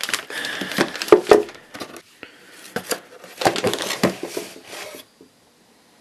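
Clear plastic bag crinkling and rustling as the Manfrotto joystick head sealed inside it is handled, with a few sharper knocks. The sound stops abruptly about five seconds in.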